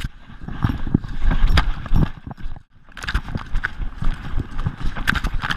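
A running Gordon Setter's paws thudding and splashing on wet sand and shallow water, heard through a camera on its collar as a rhythmic run of knocks and thuds.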